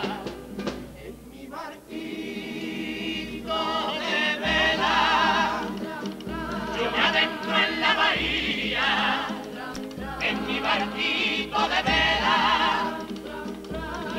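A Cádiz carnival comparsa's male chorus singing in harmony, with guitar accompaniment.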